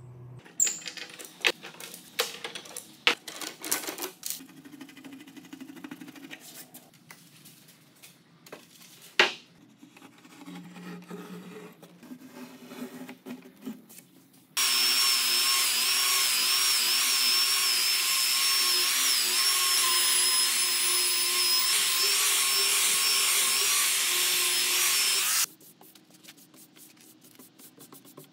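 Handheld power tool working wood, running steadily with a high whine for about ten seconds: it starts suddenly about halfway through and cuts off shortly before the end. Before it come a series of sharp knocks and clicks.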